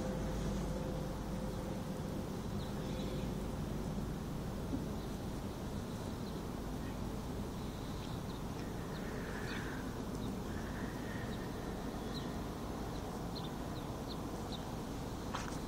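Steady outdoor background rumble with faint, short high chirps scattered through it.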